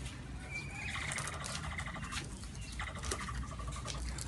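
Capybara chewing fresh grass stalks: a run of quick crunchy clicks. Two drawn-out high-pitched animal calls sound over it, the first about half a second in and the second about three seconds in.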